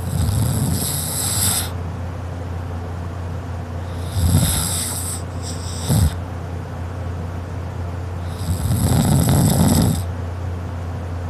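A sleeping woman snoring kinda loud: three long snores about four seconds apart, with a short sharp snort just after the second. A steady low hum runs underneath.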